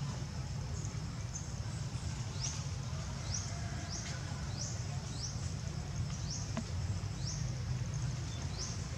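A short, high chirp that rises in pitch, repeated about once a second from a couple of seconds in, from some small creature in the surroundings, over a steady low rumble.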